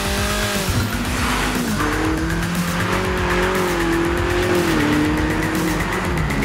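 Ferrari SF90 Stradale's twin-turbo V8 running hard on track, its pitch holding and then dropping sharply about three times, with music mixed underneath.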